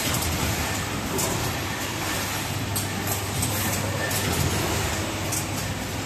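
Automatic wire harness processing machinery running: a steady mechanical hum and whir with scattered short, sharp clicks.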